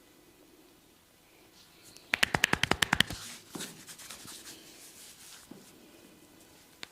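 Head massage: about ten quick, sharp hand taps on the head within a second, followed by softer rubbing and scratching of hands over hair and skin, with one more sharp click near the end.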